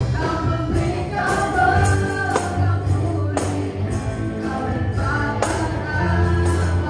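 Worship song with singing playing over loudspeakers, with a tambourine struck about once a second.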